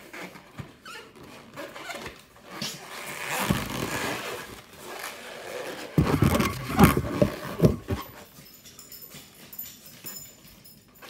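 A hand pump pushes air into a long latex modelling balloon. Latex balloons squeak and rub as they are twisted, loudest in a cluster of scraping squeaks a little past the middle.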